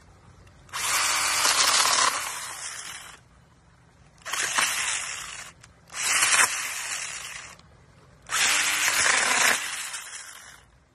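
Stihl cordless mini pruning saw running in four bursts of one to two and a half seconds each, its small chain cutting through branches, with a brief motor whine as it spins up.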